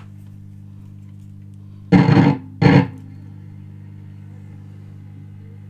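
1958 Astor BPJ valve radio playing through a speaker with a steady mains hum, which the owner puts down to failing capacitors that need replacing. About two seconds in, two short loud bursts of guitar music come through as the newly attached antenna picks up a station.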